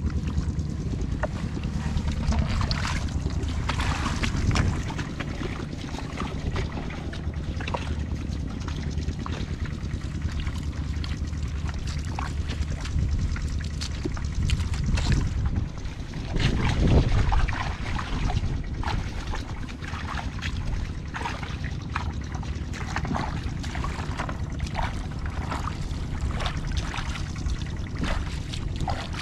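Wind rumbling on the microphone, with scattered splashing and squelching as feet wade through a flooded, muddy rice paddy; a louder gust or splash about two thirds of the way in.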